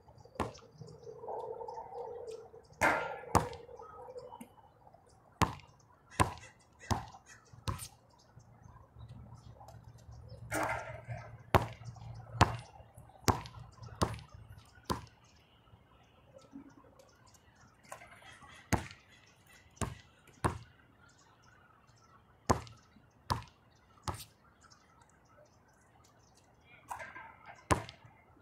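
Basketball bouncing on a hard outdoor court: single sharp bounces, some in runs about three-quarters of a second apart as the ball is dribbled.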